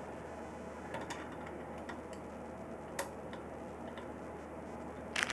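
Quiet, scattered small clicks of a screwdriver and screw touching a CPU heatsink's clamp bar while trying to get the screw engaged. There are a few single ticks, then a quick cluster of clicks near the end.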